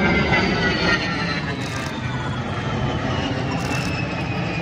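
An A-10 Thunderbolt II's twin turbofan engines whine over a broad rumble as it flies past, the whine falling steadily in pitch.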